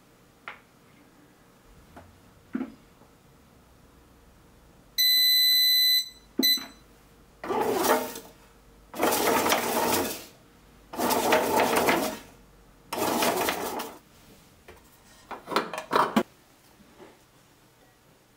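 Bread machine beeping, one long beep and a short second one, as the kneading cycle is set going. Then its motor turns the kneading paddle through the dough in four short runs of about a second each, followed by a burst of sharp clicks.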